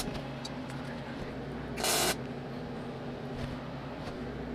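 A brief arc weld on the steel frame: a short burst of arc crackle and hiss lasting under half a second, about two seconds in, over a steady low hum.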